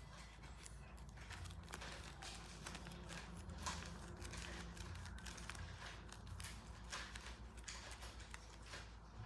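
A paper squishy being handled: faint, irregular crinkling and crackling of paper with soft taps.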